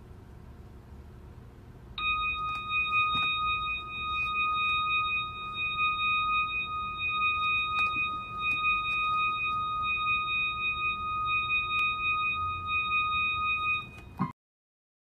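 A steady, high-pitched tone with overtones starts suddenly about two seconds in. It holds unchanged for about twelve seconds, with a slight flutter, then cuts off.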